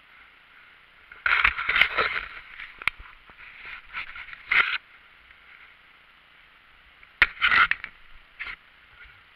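Kayak paddle strokes scraping and crunching through thin broken ice on the river surface, in four or five irregular bursts with a few sharp clicks.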